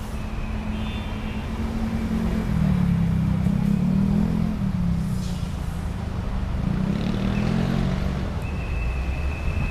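A road vehicle's engine running with a low rumble that grows louder a couple of seconds in, then eases, with a few faint high squeaks.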